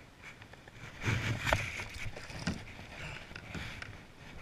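Water splashing and sloshing beside a kayak as a caught redfish is lowered over the side and released, with a few short knocks; loudest in a burst starting about a second in.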